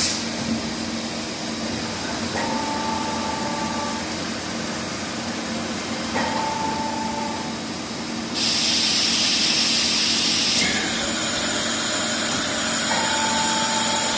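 Fermat WFC 10 CNC horizontal boring mill running: a steady machine hum with three short mid-pitched tones. About eight seconds in a hiss starts, and near eleven seconds a high steady whine joins it and the sound gets louder.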